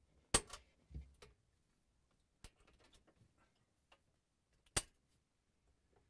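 Side cutters snipping through plastic zip ties: a few sharp snaps, the loudest about half a second in and again near the end, with fainter clicks between.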